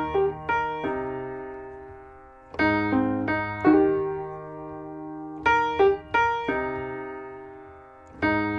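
Recorded piano music: a slow, repeating pattern of chords, each group struck together and left to ring and fade before the next.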